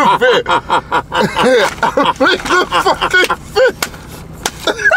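Hearty, breathless laughter from a man, a fast run of 'ha-ha' bursts that dies down about three and a half seconds in, followed by a few sharp hand claps.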